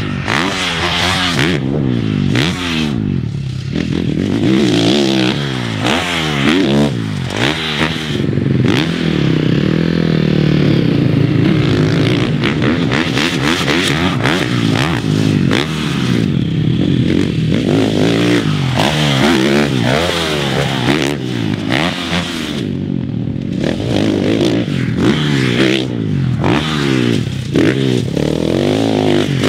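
Husqvarna FC450 450cc single-cylinder four-stroke motocross engine revving hard and dropping off over and over as the rider accelerates, shifts and rolls off for jumps and turns, with one longer pull at high revs about ten seconds in. Dirt and sand scraping under the tyres mixes in.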